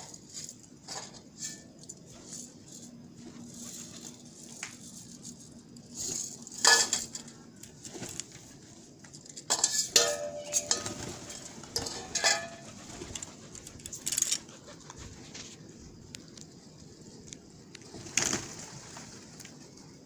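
A flock of feral pigeons and house crows feeding together: scattered sharp clicks and wing flutters among bird calls, loudest in a cluster about halfway through and again near the end.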